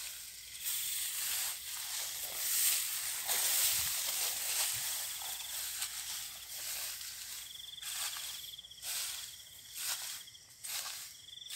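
Rice stalks and grass rustling and swishing as someone pushes through a paddy, then steady footsteps through the vegetation in the second half. An insect trills in short stretches behind it.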